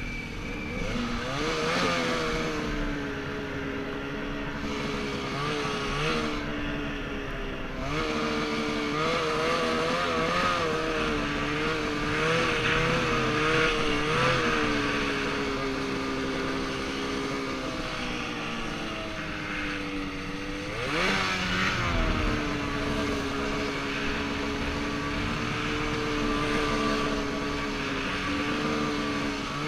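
Aerocharger-turbocharged two-stroke engine of a 2014 Ski-doo XM Freeride snowmobile running under load, its revs rising and falling with the throttle. About two-thirds of the way through the revs drop sharply and climb back. A steady hiss runs underneath.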